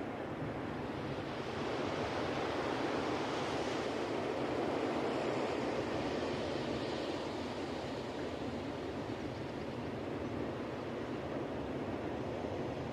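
Ocean waves washing onto a beach: a steady surf wash that swells louder over the first few seconds, then eases back.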